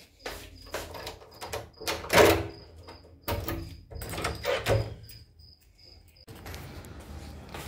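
Key being worked in a door lock under a steel lever handle: a run of metallic clicks, rattles and knocks, loudest about two seconds in. A steady hiss comes in about six seconds in.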